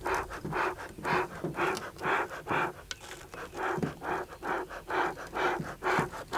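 Bee smoker's hand bellows being pumped, puffing air in a steady rhythm of about two puffs a second. It is fanning the fire in the firebox to get the fuel burning strongly and build smoke.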